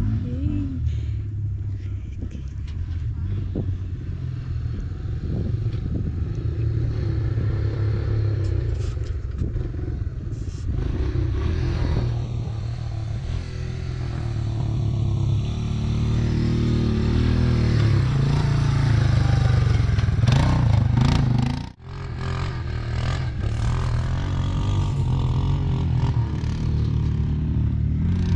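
CFMoto UForce 1000 side-by-side's V-twin engine running as it drives over rough dirt trails, with rattling from the vehicle. The sound cuts out sharply for an instant about three-quarters of the way through.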